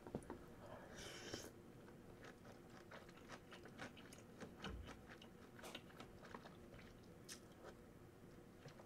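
Faint close-up mouth sounds of a person eating spicy tteokbokki: chewing, with many soft, irregular wet clicks.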